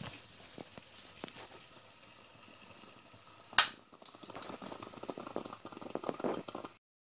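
Espresso sputtering and crackling as the last of the shot comes out of a vintage Magefesa Electro Cafetera Express into a glass cup, faint at first and denser in the second half: the end of the extraction. A single sharp knock about three and a half seconds in.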